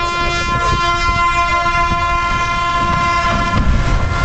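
A horn blowing one long steady note as the ship slides sideways off the launch ways. Near the end the note fades under a loud rush of water as the hull hits the river.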